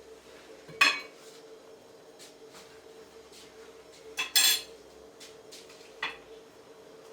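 Dishes and utensils clinking during kitchen work: a sharp clink about a second in, two more just after four seconds, and a lighter one around six seconds, over a faint steady hum.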